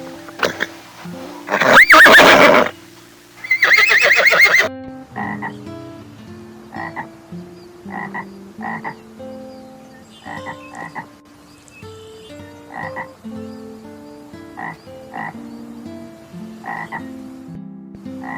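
Animal calls: two loud, drawn-out calls in the first few seconds, then a long run of short calls repeated about every half second over held low tones that step in pitch.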